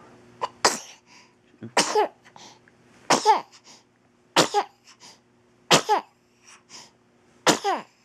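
Baby sneezing six times in a row, a short sharp burst about every second and a half, each with a little voiced tail that falls in pitch.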